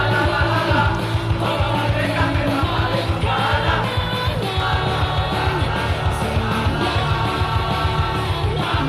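Loud rock-style music with singing over a fast, steady beat.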